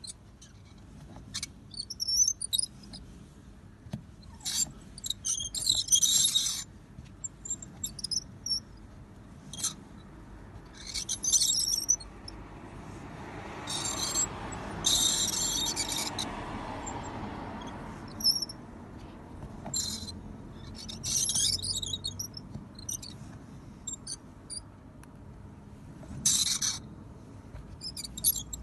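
Left front wheel of a Willys MB jeep squeaking as the vehicle rolls: short, high-pitched squeals come irregularly every second or few, with a broader swell of lower noise through the middle.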